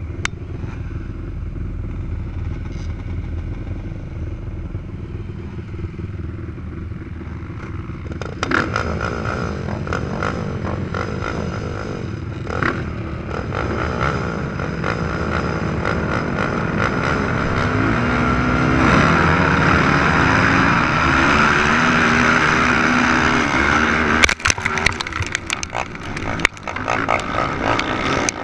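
Several 450-class racing quad engines running: a steadier, lower engine note for the first eight seconds, then a sudden jump as the engines rev hard. The sound builds to full-throttle running with rising and falling pitch, loudest a little past the middle, and turns choppy near the end.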